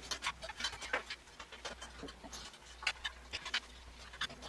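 Irregular small clicks and plastic rustling of a SATA power cable and its connector being handled and pushed into place inside a computer case.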